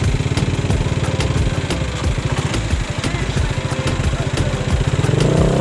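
Scooter engine idling with an even putter, then revving up near the end as it pulls away.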